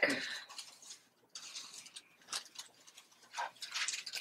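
Paintbrush strokes spreading Mod Podge across a book's paper page: soft, scratchy swishes at an uneven pace.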